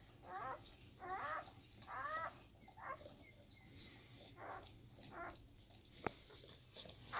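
Newborn German Shepherd puppies squealing in short, high cries that bend in pitch, about one a second. A single sharp click comes about six seconds in.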